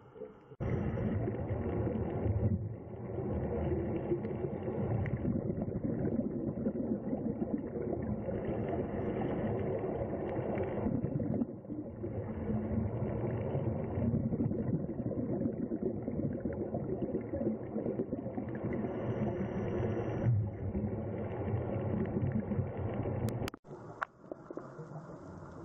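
A steady low mechanical drone like an idling motor, with a faint steady hum, starting under a second in and cutting off suddenly near the end, after which only a quieter hiss remains.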